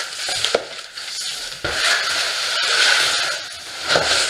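Foam and cardboard packing around a boxed e-bike being handled: irregular rustling and scraping, with a few soft knocks.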